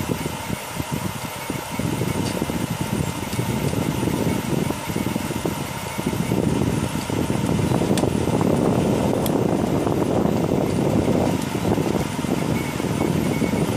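FDM 3D printer running a print: its motors whirring and buzzing in a fluttering, uneven run as the print head moves back and forth over a small part. It grows louder about six seconds in.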